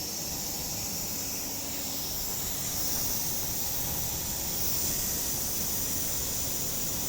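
Steady hiss of air from a 10 HP piston air compressor, with a low rumble underneath. It cuts off suddenly at the end.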